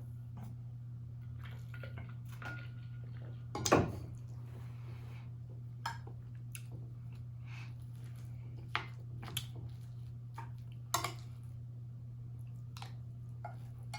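Eating at a table: cutlery clicking against a dish several times, the loudest about four seconds in, with chewing, over a steady low hum.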